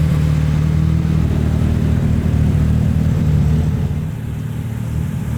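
A car engine running steadily at idle, with a low, even pitch and no revving; it gets slightly quieter about four seconds in.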